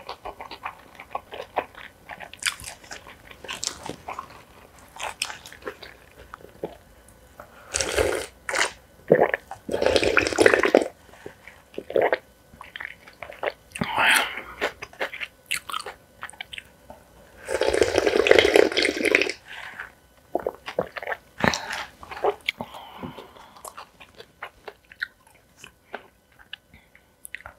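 Close-miked eating: crunchy bites and chewing in short bursts. There are two longer noisy stretches of a second or two, about a third and two-thirds of the way in.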